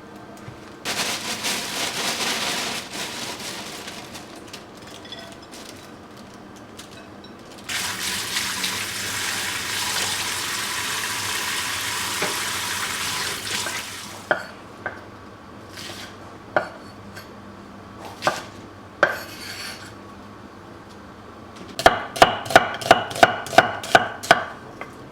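Home kitchen cooking sounds: two spells of steady hissing, scattered utensil clicks, then a quick run of about ten ringing clinks of a metal utensil against cookware near the end.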